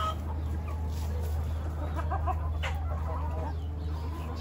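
Backyard flock of chickens clucking, a cluster of short clucks in the second half, over a steady low rumble.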